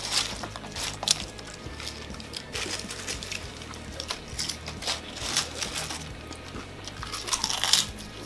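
Potato chips crunching and crackling as they are picked up off a platter and chewed, in irregular bursts with the loudest crunches near the end, over background music.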